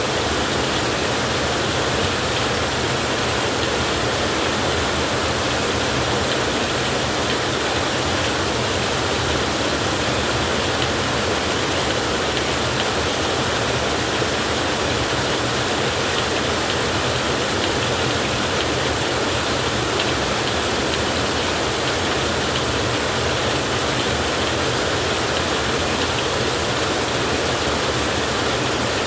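Heavy rain falling steadily, a dense, even hiss with no breaks or thunderclaps.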